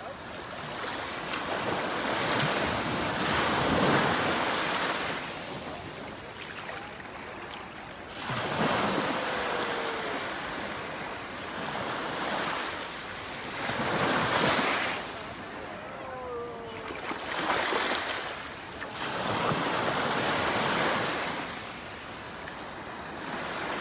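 Sea waves breaking and washing in, the rush of water swelling and falling back in surges every few seconds.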